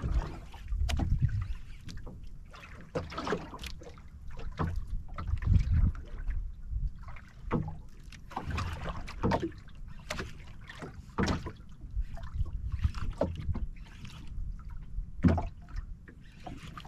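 Water slapping and splashing against the hull of a small wooden outrigger boat rocking on open sea, in irregular surges with dull low thumps.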